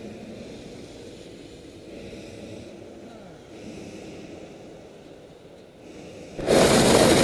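Hot air balloon's propane burner firing: a sudden, very loud, steady blast that starts abruptly near the end and is by far the loudest sound. Before it, only a quiet low murmur.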